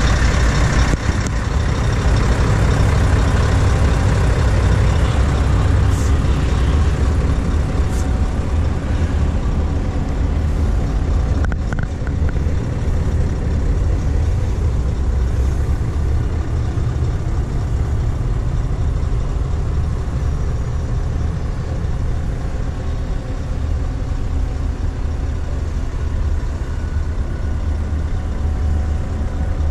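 Scania S650's 16-litre V8 diesel idling steadily, heard in the cab, with a few faint clicks.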